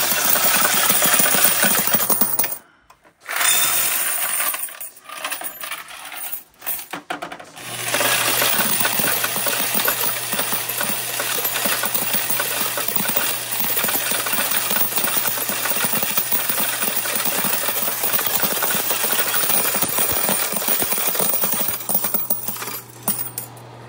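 Ribao electric coin counter running, its motor humming while brass car-wash tokens clatter through it and pour into a plastic cup. It stops about two and a half seconds in, starts again in a few short spurts, then runs steadily from about eight seconds in until near the end.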